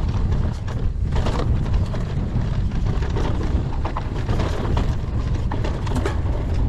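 Wind buffeting the action camera's microphone as a low rumble, over the rattle and knocks of an electric mountain bike rolling fast across a rocky trail.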